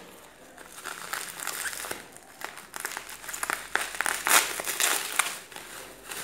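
Plastic bubble wrap crinkling and crackling as it is handled and peeled off a small item by hand. The sound comes in uneven rustles with sharp crackles and is loudest a little past four seconds in.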